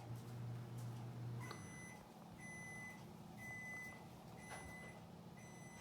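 A low hum stops about a second and a half in, then five high electronic beeps sound, each about half a second long, roughly one a second.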